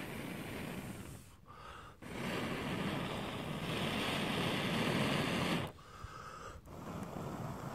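A person blowing steadily on a smouldering cramp ball fungus to fan the ember and spread it to a second piece. There are three long breaths of rushing air with short pauses between them; the middle breath is the longest and loudest.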